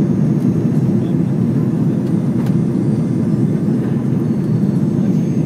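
Steady low cabin noise of a jet airliner in flight: engines and rushing air heard from inside the cabin at a seat over the wing.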